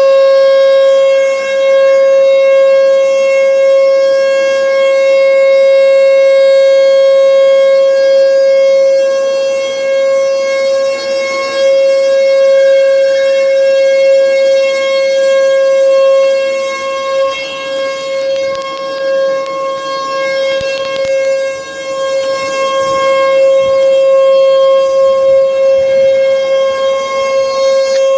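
Three Mile Island nuclear plant outdoor warning siren sounding a loud, steady single-pitch tone during an activation. Its loudness dips and swells irregularly in the second half.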